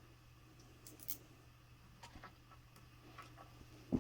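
Faint, scattered clicks and light metallic scrapes of a bolt and washer being started by hand into the bike's rear stabilizer, a few small ticks over a steady low hum.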